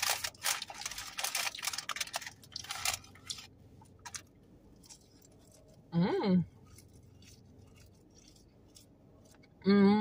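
Close-up eating sounds from fast food: chewing and crunching clicks for the first few seconds. A short hummed 'mm' comes at about six seconds, and another starts just before the end.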